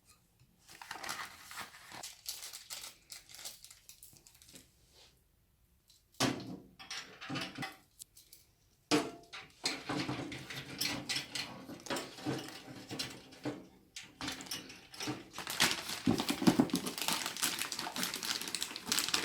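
Irregular crinkling and rustling with scattered clicks and knocks as computer parts and their packaging are handled, growing busier near the end.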